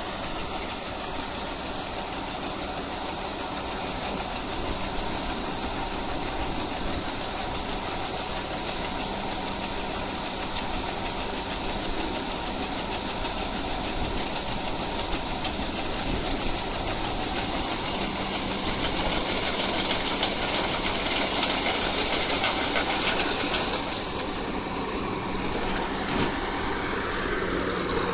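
Bizon Z056 combine harvester's diesel engine running steadily while its unloading auger pours grain into a trailer with a loud, steady hiss. The hiss falls away sharply a few seconds before the end, leaving the engine.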